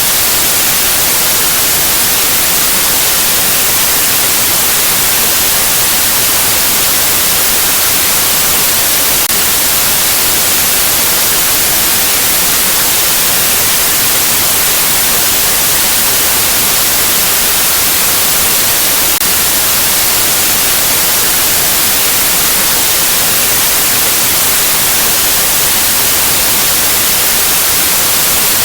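Continuous white-noise static: an even, hissing rush that stays at one level throughout, brightest in the treble.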